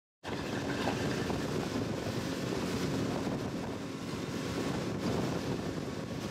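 Steady wind noise on the microphone with water noise from open water; it cuts in abruptly just after the start, out of silence.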